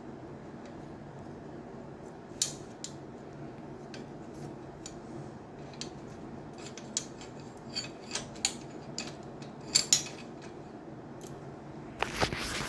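Scattered sharp metallic clicks and taps of a tool and bolts being handled while fitting a bicycle rack, the loudest a quick pair near the end, over a steady low hum.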